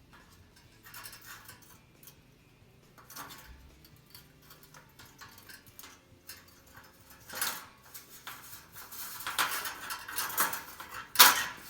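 Metal grille bar parts of a 1957 Chevy Bel Air clinking and scraping together as they are fitted to each other: a few light clicks at first, then a busier run of metal clatter with one sharp click near the end.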